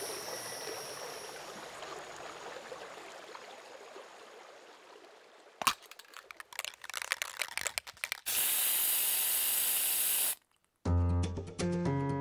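A noisy ambience fades down. Then comes a sharp click, a spray-paint can rattling, and about two seconds of loud steady spray hiss that cuts off sharply. After a moment's silence, music with plucked notes and a steady bass line starts near the end.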